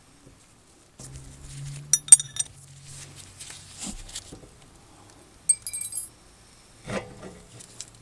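Steel tools clinking against a brake caliper and its piston wind-back tool as they are handled: a quick run of sharp, ringing metallic clinks about two seconds in, another cluster a little past the middle, and a dull knock near the end.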